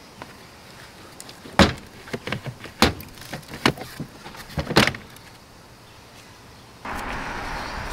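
Plastic trim clips popping and hard plastic panels knocking as the Tesla Model 3's frunk cabin intake duct cover is pried up and lifted out: a run of sharp clicks and knocks over about three seconds, the first the loudest. Near the end a steady hiss comes in.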